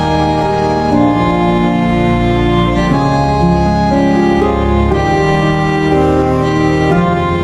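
Background music: sustained organ-like keyboard chords changing about once a second.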